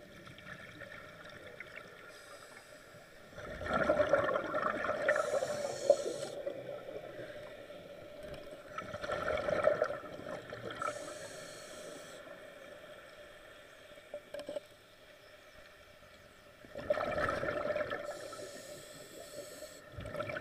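Underwater bubbling and gurgling in three bursts of two to three seconds each, over a faint steady hum.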